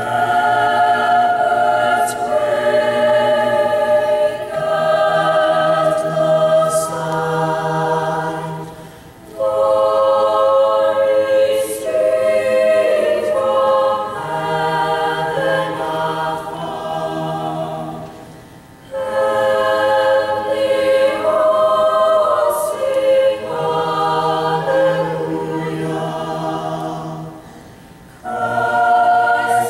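Mixed youth choir of girls' and boys' voices singing a cappella in long, slow, held phrases. The choir breaks briefly between phrases about every nine seconds, three times.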